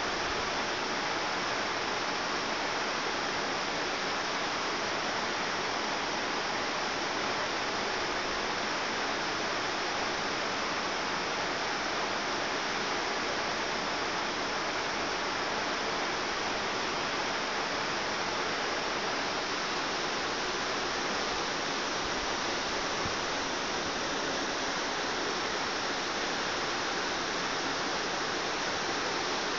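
A stream flowing: a steady, even rush of water with no breaks.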